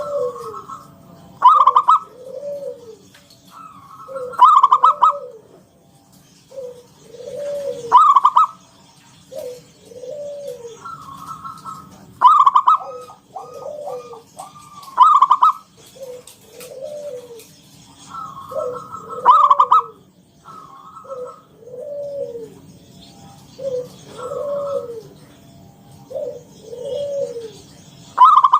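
Zebra dove (perkutut) cooing over and over: short arched coos repeated every second or two, with louder, higher clipped notes in groups among them.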